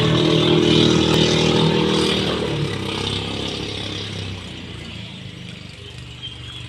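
Engine of a motorized outrigger pump boat running at speed offshore, a steady drone that fades away over a few seconds as the boat moves off.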